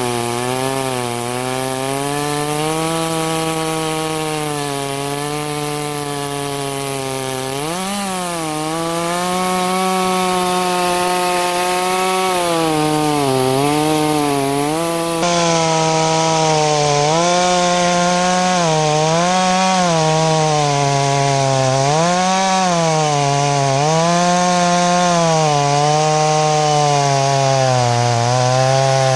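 Farmertec Holzfforma G660 two-stroke chainsaw running at full throttle while cutting deep into a large dry hardwood log. The engine is under heavy load, and its pitch sags and recovers every second or two as the chain bogs in the cut and clears.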